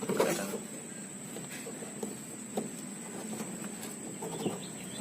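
Faint, scattered clicks and taps of hands working plastic parts of a washing machine's drain valve, over a thin, steady high-pitched whine.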